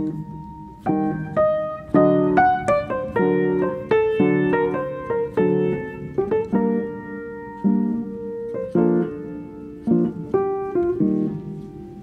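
Background piano music: notes and chords struck one after another, each starting sharply and fading.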